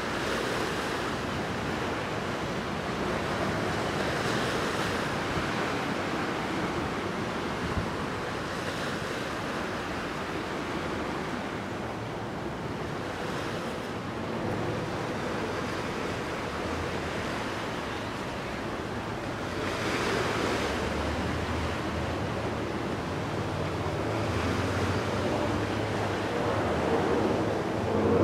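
Small waves washing ashore, swelling every four or five seconds, with some wind on the microphone. A low engine hum joins from about twenty seconds in.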